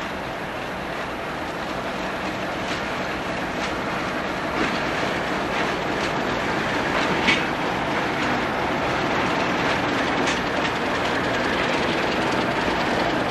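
Freight train led by an Alco S4 locomotive rolling past, with a steady rumble and a few sharp clicks of wheels over rail joints.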